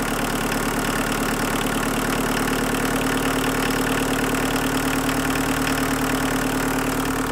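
Volkswagen 1.6-litre four-cylinder turbodiesel idling steadily, heard from beside the open engine bay. The idle speed is being raised at the injection pump's idle screw for cold weather.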